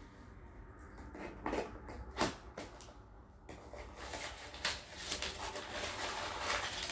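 Hands tearing open a securely taped small cardboard box: a few separate sharp rips and scrapes of tape and cardboard, then steadier rustling of paper packing from about four seconds in.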